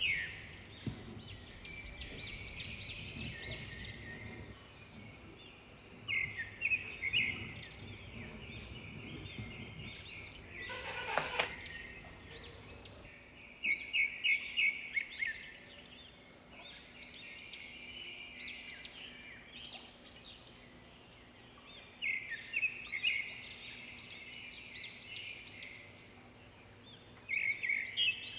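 A bird singing a short phrase of rapid, high chirping notes, repeated every few seconds, over a faint low hum. About eleven seconds in there is one brief clatter.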